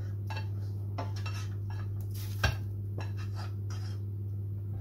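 A spoon scraping and clinking against a metal saucepan in irregular strokes as tomato sauce is spooned out, with one dull knock about two and a half seconds in, the loudest sound. A steady low hum runs underneath.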